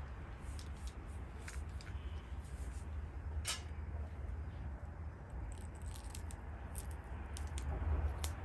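Light clicks and rustles of hands handling electrical wires and plastic wire nuts, with one sharper click about three and a half seconds in and a run of small ticks near the end, over a steady low hum.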